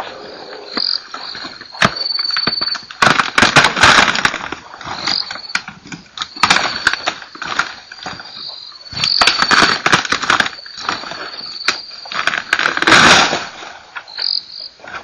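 Insects trilling at a steady high pitch, broken by four or five loud bursts of rustling, crackling noise about a second long each.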